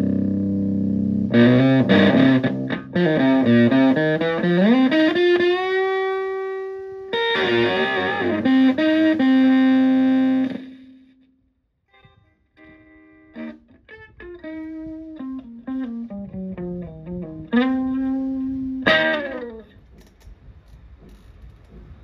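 Stratocaster electric guitar played through a Tone Bender MK1.5-style fuzz pedal into a Fender Twin Reverb-style amp. A held chord gives way to a run of single-note lead lines with bends and vibrato, which ring out and stop about eleven seconds in. After a short gap come quieter, lighter-picked notes, then one loud bent note that fades near the end.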